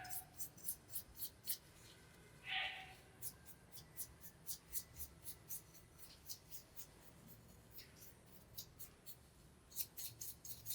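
Rapid scratching strokes by hand on a hard surface, about four to five a second, in runs broken by short pauses, with one brief louder sound about two and a half seconds in.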